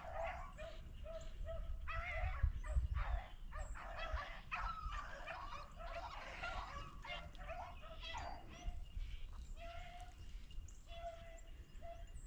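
Beagles baying as they run a rabbit's track: many short, repeated hound calls, some overlapping.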